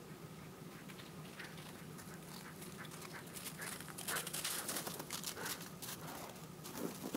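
A dog running up over packed, crusted snow: quick crunching paw steps, growing louder and busiest as it arrives about four seconds in.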